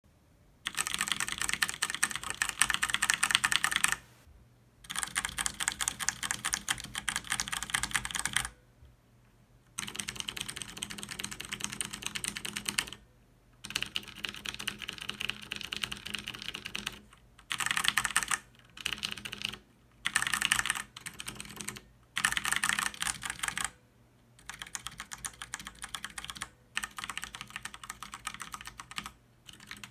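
Cherry MX Brown switches on a plate-mounted Ducky DK9008 mechanical keyboard, typed in fast runs of a few seconds each, separated by short pauses. The first four runs go from loudest to quietest: bare keycaps, then 40A EPDM rubber O-rings, then QMX-Clip silencers, then O-rings and clips together. After that, short runs alternate between the silenced setups and bare keycaps, and the last runs are ordinary-pressure typing.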